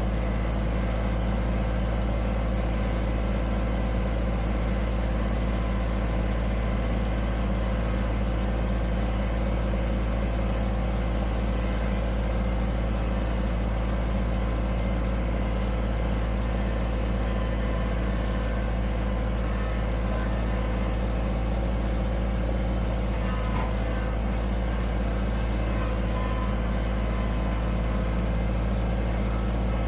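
Kubota BX25D sub-compact tractor's three-cylinder diesel engine running steadily as the tractor drives along, heard from the driver's seat.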